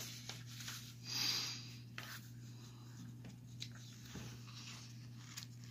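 Faint rustling and handling of magazine pages as they are held and pressed open, swelling briefly about a second in, over a low steady hum.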